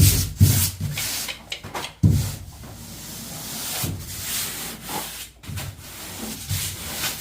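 Rubbing and scraping against a surface, broken by several dull thumps, the loudest near the start and about two seconds in.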